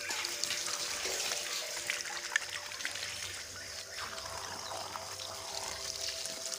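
Steady stream of water from a pipe, pouring and splashing onto plastic toy vehicles and wet concrete.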